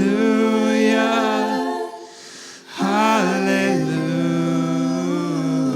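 Singers holding long notes on the refrain 'hallelujah', nearly a cappella. There is a brief drop between phrases about two seconds in.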